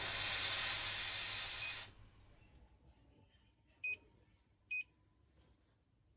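Hot soldering iron tip hissing in a wet sponge for about two seconds as the water flashes to steam. About two seconds later come two short, high beeps, just under a second apart, from the soldering station.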